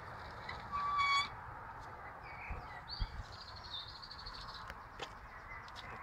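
A small parrot calling: one short, clear whistled note about a second in, then soft chattering chirps, over a low background rumble.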